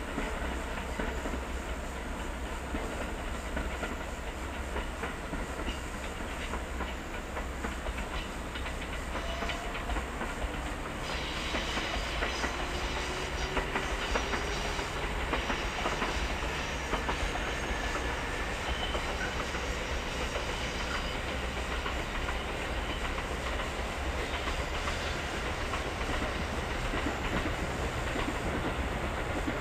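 Kintetsu electric train running on a concrete viaduct, wheels clacking over the rail joints under a steady rumble. From about eleven seconds in, a faint whine rises in pitch as the train gathers speed.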